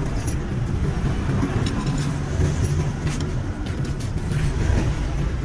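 Steady low rumble of road vehicles, with scattered short clicks over it.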